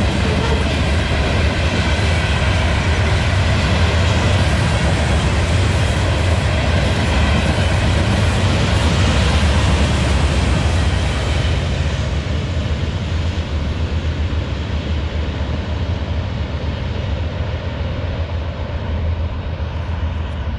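Freight train of loaded gravel hopper cars rolling fast past the crossing: a steady, loud rush of wheel-on-rail noise over a low rumble. About twelve seconds in the higher sounds fall away, leaving a duller rumble.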